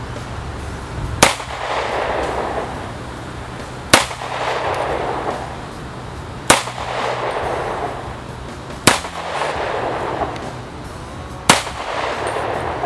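STI Comet pistol firing .38 Super: five single, deliberately paced shots about two and a half seconds apart. Each shot is followed by about a second of echo.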